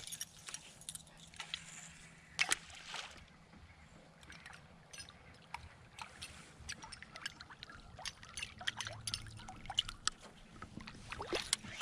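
Musky flaptail topwater lure being retrieved across calm water: its tail blade slaps and churns the surface in a run of quick, irregular clicks and small splashes, with a louder burst about two and a half seconds in.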